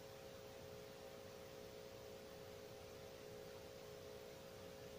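Near silence: room tone with a faint steady hum of a few close tones.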